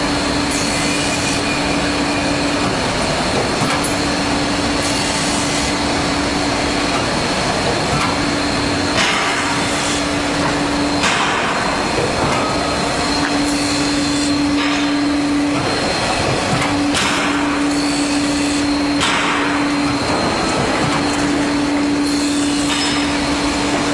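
CNC circular saw blade sharpening machine running, its motor and grinding wheel making a steady loud noise. Over it a hum breaks off and resumes every few seconds, and short hissing bursts come every couple of seconds.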